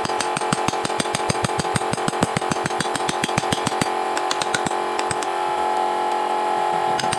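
Fast, even tapping of a wooden carving tool being struck, about eight taps a second, stopping about four seconds in. Steady sustained tones sound throughout.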